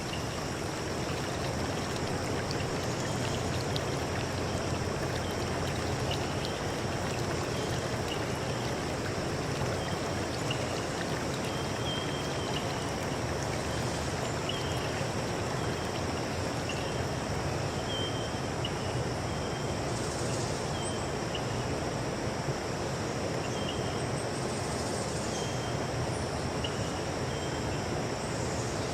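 Steady running water of a stream, with a thin high-pitched hum over it and short faint chirps recurring every second or two.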